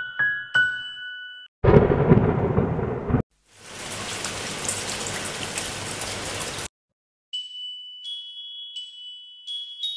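A thunderclap followed by a few seconds of steady rain, both cut in abruptly as sound effects. Keyboard music plays briefly at the start, stops for the storm, and comes back near the end.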